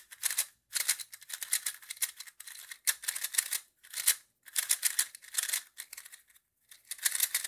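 Magnetic 2x2 speed cube (YJ Yupo V2M) being turned fast by hand: quick runs of plastic clicking and clacking, with short pauses between runs.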